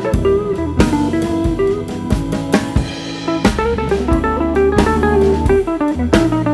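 Background music: guitar with bass and a drum kit keeping a steady beat.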